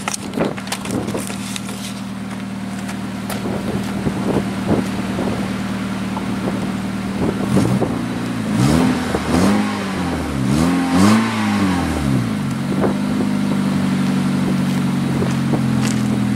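2003 Honda Civic's 1.7 L D17 SOHC four-cylinder idling on its stock exhaust manifold. Around the middle the throttle is blipped about four times, the pitch rising and falling with each rev, before it settles back to a steady idle.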